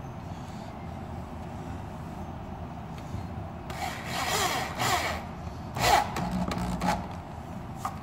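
Cordless drill driving a wood screw down into a softwood roof board, running in short bursts with its pitch sliding as the screw bites, from about four to seven seconds in.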